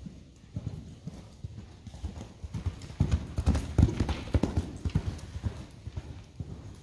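Horse cantering on sand arena footing, its hoofbeats dull thuds that grow louder as it passes close by about three seconds in, then fade as it moves away.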